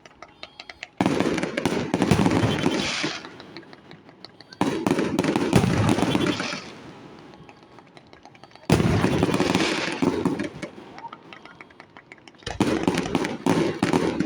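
Fireworks going off in four loud volleys about every four seconds, each starting with a sudden boom and then crackling for a couple of seconds as it dies away.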